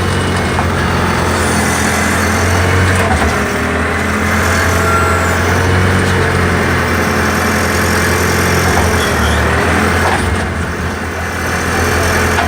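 Backhoe engine running steadily under load while the arm digs, with the tone of the hydraulics wandering up and down in pitch.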